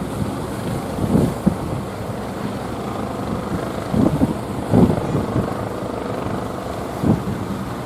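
Fishing boat engine running steadily, with wind buffeting the microphone in several short gusts.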